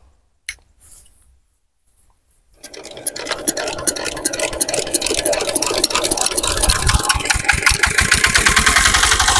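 Small farm diesel engine being hand-cranked to start it. After a near-silent pause with a click or two, the rhythmic chugging begins about three seconds in and grows faster and louder. From about six seconds in it runs on its own with a steady, rapid knocking beat.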